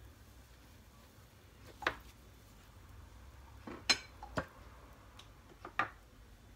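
Kitchen utensils clinking and knocking: several separate light clinks over a quiet background, the sharpest about four seconds in.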